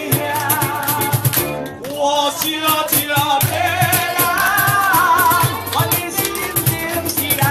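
Ukuleles strummed in a steady rhythm while voices sing a melody: a ukulele ensemble playing a song with singing.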